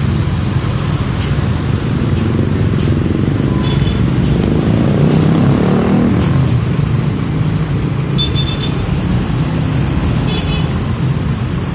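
Heavy road traffic going by, with a steady low engine rumble. A pitch sweep around the middle marks a vehicle passing close. A few faint clicks and short high chirps sit over it, but no horn tune.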